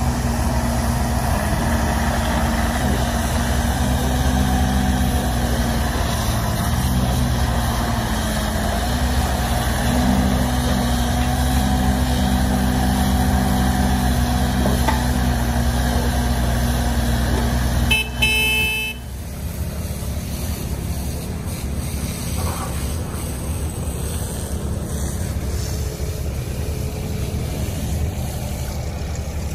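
Cat 301.6 mini excavator's diesel engine running steadily while the machine works. About two-thirds of the way through there is a short horn toot, after which the engine settles to a quieter, lower running.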